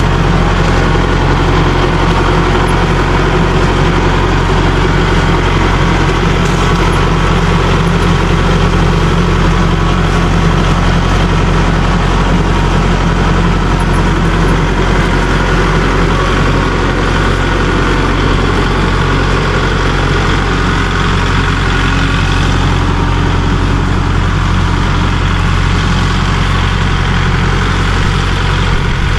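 A vehicle's engine running steadily with a constant low drone.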